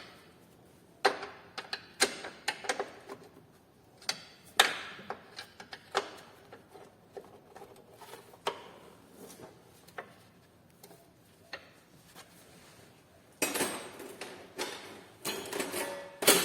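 Irregular metallic clicks and clanks of hand tools working on a car's front suspension control-arm bolts, with a denser run of clatter near the end.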